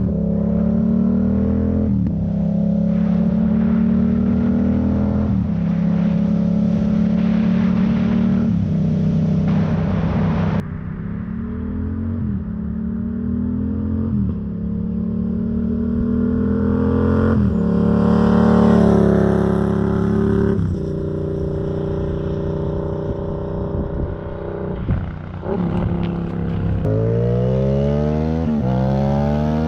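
2017 Yamaha MT-07 (FZ-07) 689 cc parallel-twin engine through an un-baffled Black Widow full-system exhaust, super loud, accelerating and shifting up through the gears. The pitch climbs and drops back at each shift, with a quick run of upshifts near the end.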